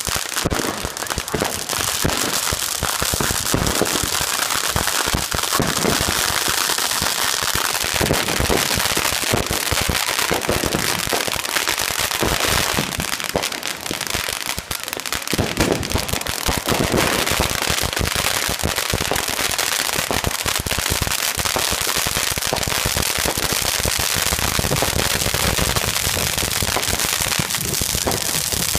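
Several ground fireworks going off at once, a dense, continuous crackle of rapid pops that never lets up.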